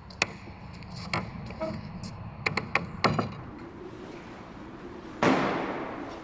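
A few sharp clicks and knocks, then about five seconds in a single sudden loud bang that echoes and dies away in a large, empty, hard-walled building.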